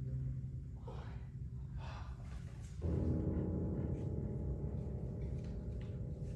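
The last chord of a string quartet (two violins, viola and cello) dying away into the hall's reverberation, its low notes fading within the first second. A quiet pause follows with faint soft noises, and about three seconds in a low steady rumble comes up.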